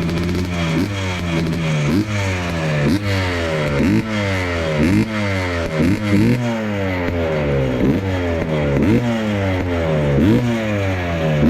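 Yamaha Blaster 200 big-bore single-cylinder two-stroke engine running, its throttle blipped over and over: the revs jump up quickly and fall back, about once a second.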